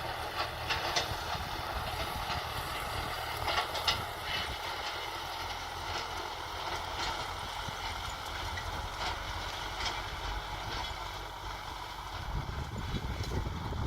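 Kubota M6040 SU tractor's four-cylinder diesel engine running steadily while ploughing, with scattered short knocks and rattles.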